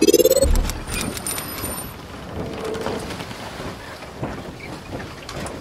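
Logo intro sound effects: a rising whoosh that ends in a deep boom about half a second in, followed by a crackling hiss scattered with clicks and brief high tinkles.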